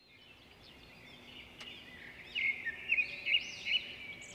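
Small birds chirping and twittering in quick, high, repeated calls. The sound fades in at the start, and the calls are loudest in a cluster of sharp chirps a little past halfway.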